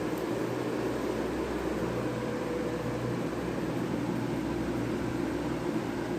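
Steady background hum with a hiss, like a running fan or air conditioner, holding even throughout.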